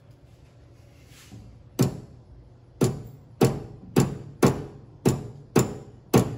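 Eight sharp taps from a soft-faced mallet striking the mini lathe's chuck, starting about two seconds in and coming roughly every half second. These are light knocks to nudge the work into line while a dial indicator is read.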